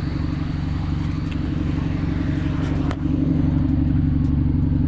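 Car engine running while driving, with road noise; the engine note steps up and gets louder about three seconds in.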